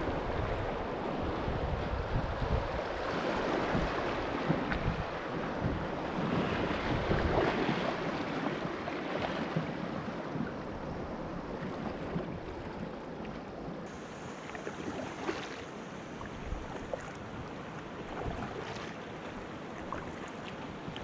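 Rushing river water running through a riffle around a kayak, with wind buffeting the microphone. The wind rumble and the rush ease off about halfway through.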